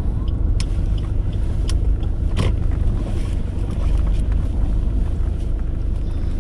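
Car interior noise while driving: a steady low engine and road rumble inside the cabin, with a few faint clicks.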